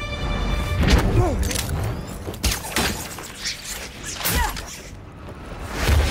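Movie soundtrack of a struggle: a string of sharp thuds and hits, each followed by short grunts and cries of effort that fall in pitch.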